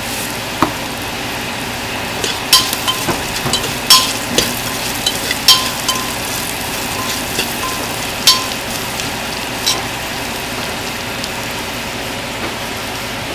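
Sliced onions and whole spices sizzling steadily in hot oil in a pot, stirred with a metal spoon that clinks and scrapes against the pot about eight times, mostly in the first ten seconds.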